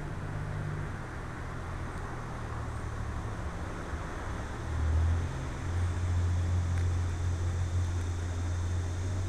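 Low, steady mechanical hum like an engine running, over a constant hiss; the hum drops slightly in pitch at the start and gets louder about five seconds in.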